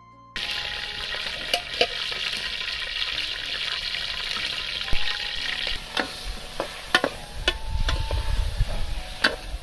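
Vegetables frying in hot oil in an aluminium pot over a wood fire: a loud steady sizzle for the first six seconds or so, then quieter. After that a metal ladle clinks and scrapes against the pot as the food is stirred.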